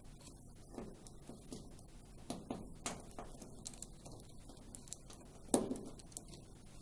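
Faint handling noise of plastic wire connectors and cables on a tumble dryer's heater wiring being worked and unplugged by hand: a few soft clicks and taps, the loudest about five and a half seconds in.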